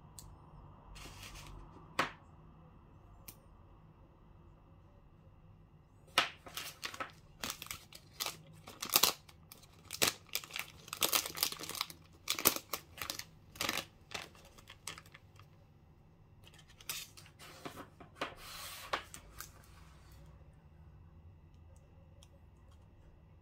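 KitKat candy-bar wrappers crinkling and crackling as they are handled, in a dense run of sharp crackles from about six seconds in until about twenty seconds. A single sharp click about two seconds in.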